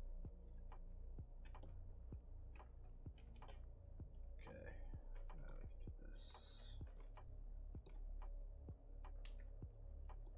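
Faint, irregular clicking of computer keys and mouse buttons, a few clicks a second, over a low steady hum, with a short hiss about six seconds in.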